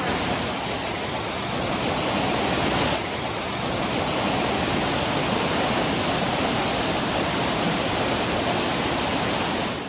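Steady rush of a mountain waterfall's falling water.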